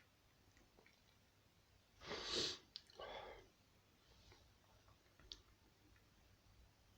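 A person sneezes once, loud and sudden, about two seconds in, followed at once by a shorter, quieter sniff.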